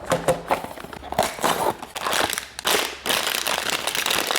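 Blind-box packaging being opened by hand: dense crinkling and crackling of wrapper, with quick small clicks throughout.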